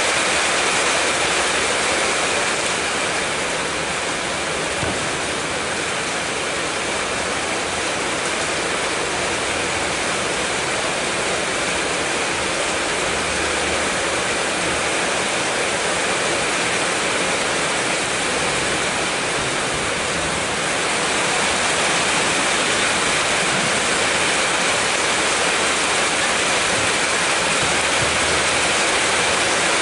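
Heavy rain falling steadily, a dense, even hiss with no break.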